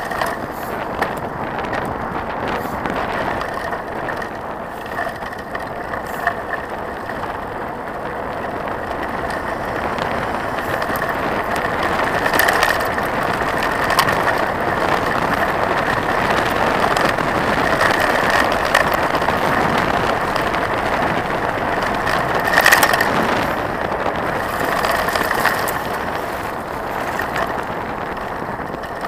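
Mountain bike rolling along a gravel road: a steady crunch and rumble of the tyres with rattling from the bike, louder through the middle stretch, and a few sharp knocks, the strongest about three quarters of the way through.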